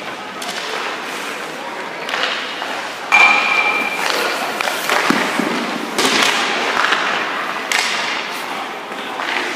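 Hockey goalie's skate blades scraping the ice in several hissing strokes a second or two apart as he pushes and slides in the butterfly across the crease, with a thud from his leg pads dropping onto the ice.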